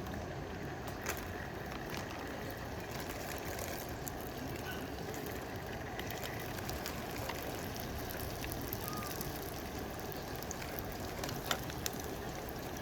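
Steady rushing noise with scattered light clicks and ticks.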